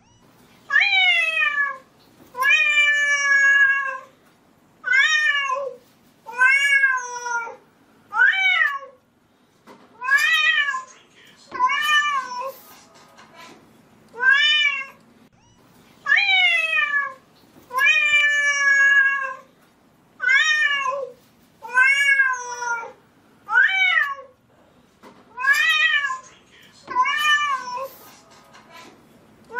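Young tabby cat meowing over and over, about fifteen drawn-out meows that mostly slide down in pitch, one every second and a half to two seconds: clingy, attention-seeking meows.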